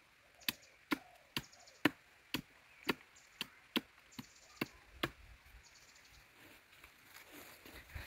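A blade chopping a thin bamboo stick into short pieces: about eleven sharp cuts at roughly two a second, stopping about five seconds in, followed by faint rustling.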